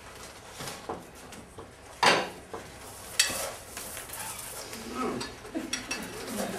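A metal spoon clinking and scraping in an enamel pot, with a sharp clink about two seconds in and another about a second later.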